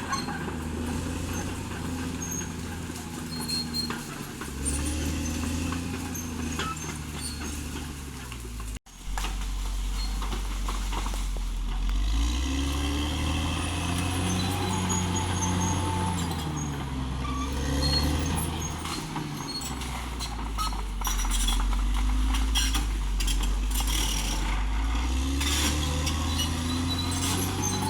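Caterpillar D6R XL bulldozer's diesel engine working under load, its pitch rising and falling again and again as it pushes, with scattered clanks. The sound cuts out for an instant about nine seconds in.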